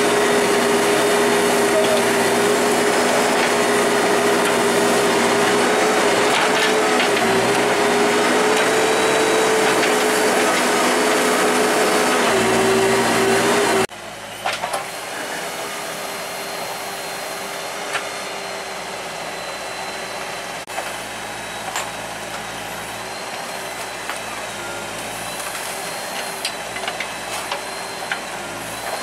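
Heavy vehicle engine running steadily and loudly with a wavering hum. About halfway through it cuts off abruptly to a quieter engine hum with scattered short knocks.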